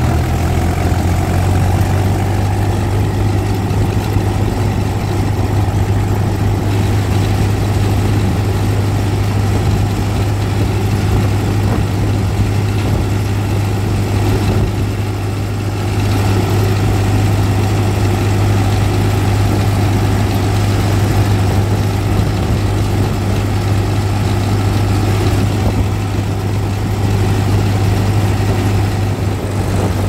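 Diesel tractor engine running steadily while driving, heard from the driver's seat close to its upright exhaust: a constant low drone that goes briefly quieter about halfway through.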